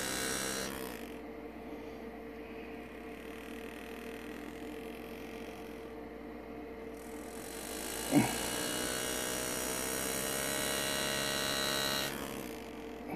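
Power-assisted hand-engraving graver buzzing as it cuts small chips out of a pewter chalice, over a steady hum. The buzz grows louder from about seven seconds in and drops back near the end, with one short knock about eight seconds in.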